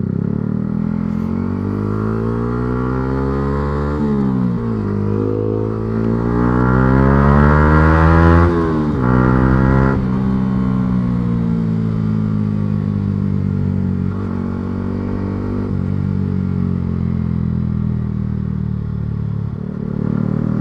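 A 2023 Yamaha R125's single-cylinder 125 cc engine pulling under load, heard while riding. The revs climb and drop back sharply about four seconds in, climb again and drop about eight and a half seconds in, then the engine runs at a steady, slowly easing pitch.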